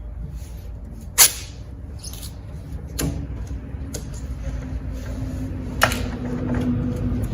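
Masking tape being pulled and torn off the roll in several short, sharp rips, the loudest about a second in, over a steady low rumble with a faint hum joining partway through.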